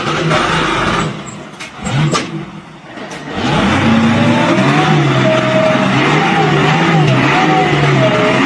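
An engine running. About three and a half seconds in it becomes louder and steady, its pitch wavering up and down, after a stretch of uneven noise with a few sharp clicks.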